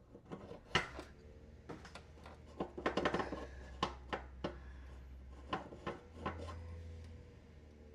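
Scattered metal clinks and taps as a metal blade adapter is turned and worked onto a mower engine's crankshaft to line its raised key up with the keyway. The clinks are thickest about three seconds in, over a low steady hum.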